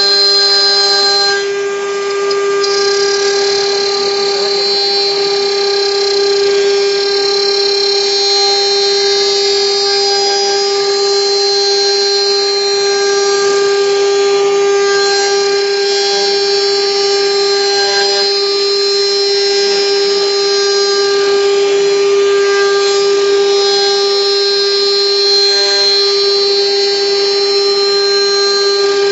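YuanNuo CNC router spindle whining steadily while its end mill cuts a pocket into a block of wood. The sound dips briefly about two seconds in.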